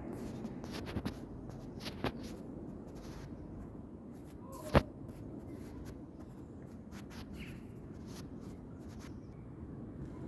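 Scattered small clicks and rustles, with one sharp, loud click about halfway through, over a low, steady background rumble.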